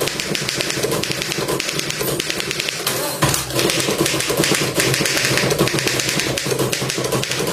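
Antique manual typewriter being typed on quickly: a dense, irregular clatter of keys and typebars striking the platen, with one heavier knock about three seconds in.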